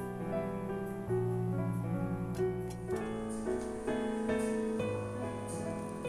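Background piano music: a gentle melody of changing notes over held bass notes.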